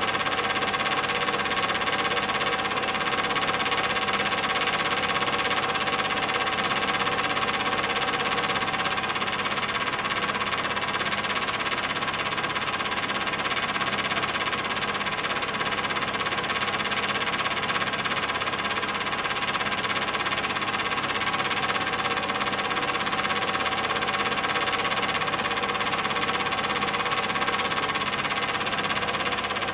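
Super 8 film projector running, a steady whir with a fast mechanical clatter from the film-advance mechanism.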